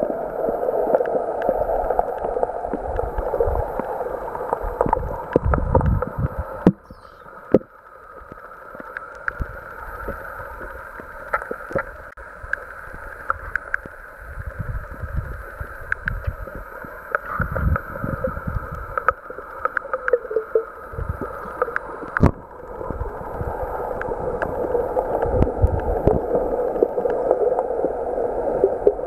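Underwater sound picked up by a camera submerged in a lake: a steady muffled rush of water, with scattered clicks and low thumps. It drops quieter about seven seconds in and builds back up toward the end.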